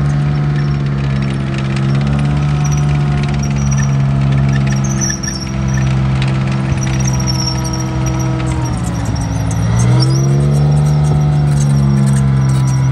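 Tracked self-propelled gun driving by, its engine running with a steady drone that sags in pitch about nine seconds in and climbs back. The tracks squeal thinly and clatter over the engine, the clatter busier near the end.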